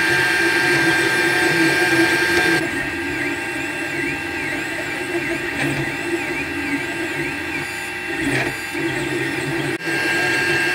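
Desktop 3D printer running a print: its stepper motors whine with steady tones, and through the middle the pitch rises and falls over and over as the print head moves. The sound drops a little in level about two and a half seconds in.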